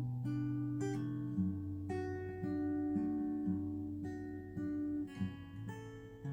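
Background music: acoustic guitar playing sustained, changing chords.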